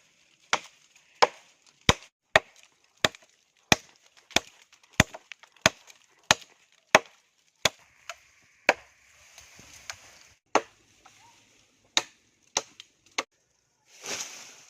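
Steady chopping into wood with a blade, about one and a half sharp strokes a second, with a short pause midway, then a brief rustling scrape near the end.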